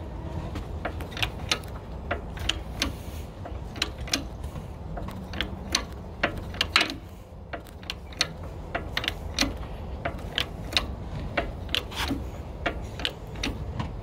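Hand-pumped 8-ton bottle jack in a press, pushing the remains of a failed wheel bearing out of a steering knuckle. It gives a string of sharp clicks and clacks, a few a second and uneven, over a low steady rumble.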